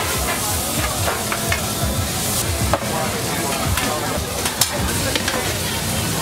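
Food sizzling on a hot grill or griddle, with scattered clinks and knocks of utensils working it.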